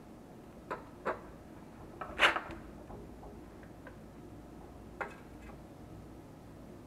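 A handful of short, light knocks and clicks, the loudest a little over two seconds in and one more near five seconds, as a TIG welding torch, its cable and a filler rod are handled and set in place over a stainless-steel catalytic converter shell before welding.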